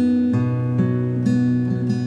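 Relaxing instrumental acoustic guitar music: a chord struck at the start, its notes ringing on while further notes are plucked over it about every half second.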